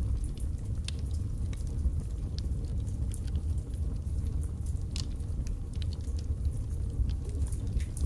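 Wood logs burning in a fireplace: a steady low rush of flame with irregular sharp crackles and pops scattered throughout.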